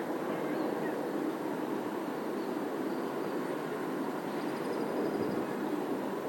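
Steady rumble of city traffic heard across a dense neighbourhood, with a few faint high chirps and a short trill about four to five seconds in.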